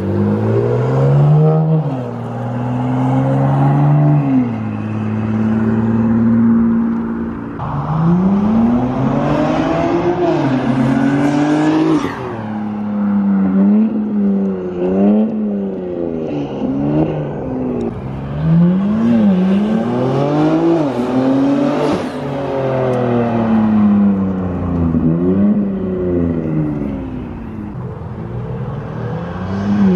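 BMW M4's S58 twin-turbo inline-six, with aftermarket downpipes, midpipe and intakes and its exhaust valves held open, accelerating hard through the gears on several separate pulls. The pitch climbs steeply and drops back at each upshift.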